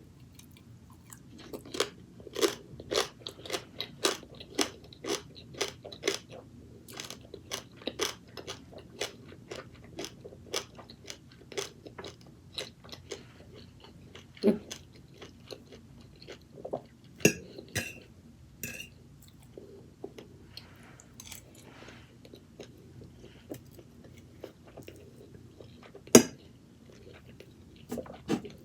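Close-miked chewing of crunchy food: a quick run of crisp crunches, about two a second, through the first half, then slower, sparser chewing. A single sharp, loud click comes near the end.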